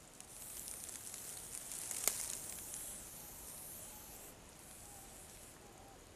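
Aerosol spray hissing in one long burst of about four seconds, with a sharp click about two seconds in, then trailing off to a faint hiss.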